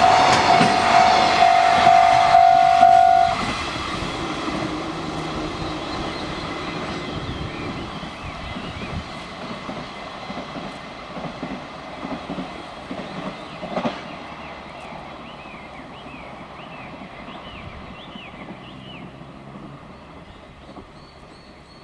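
Level-crossing alarm ringing over the clatter of a passing container freight train; the alarm stops suddenly about three seconds in. The wagons' rumble then fades steadily away, with birds chirping later on.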